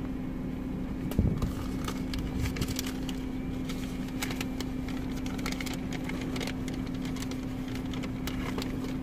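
Idling car engine humming steadily, heard from inside the cabin, with scattered light clicks and paper rustling and a single knock about a second in.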